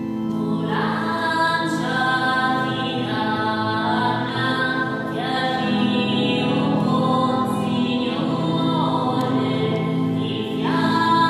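Slow devotional hymn: voices singing long held phrases over a steady, low sustained accompaniment, with a new phrase about a second in, another about five seconds in and another near the end.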